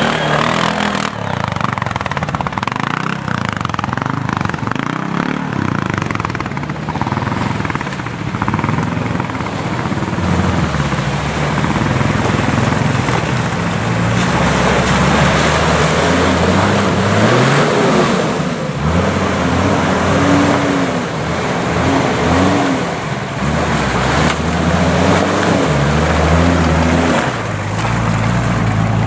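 Off-road 4x4's engine working hard. Its pitch rises and falls as the throttle is opened and eased, over a constant rushing noise.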